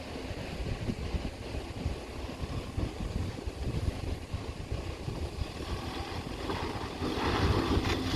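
Toyota Prado four-wheel drive working its way through a rocky creek crossing, its engine and drivetrain rumbling under uneven load with wind on the microphone; it grows louder near the end.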